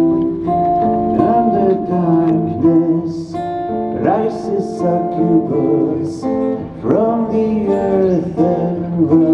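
Live acoustic performance of a slow song: acoustic guitars playing held chords under a male lead vocal.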